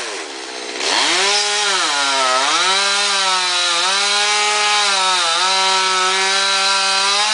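Stihl two-stroke chainsaw cutting star pine: it drops off throttle at the start, revs back up about a second in, and runs at full throttle through the wood, its pitch dipping briefly under load a few times before it eases off near the end.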